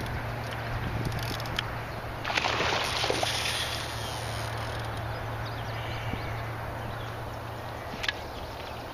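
Water splashing and sloshing for about two seconds, starting a little over two seconds in, as a hooked pike thrashes at the surface, over a steady low hum; a single sharp click near the end.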